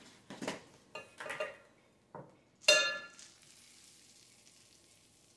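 Dry quick oats being measured out: a few short scrapes and knocks of handling, then a ringing clink of kitchenware about halfway through, the loudest sound, followed by a soft steady hiss of oats pouring from a canister into a measuring cup.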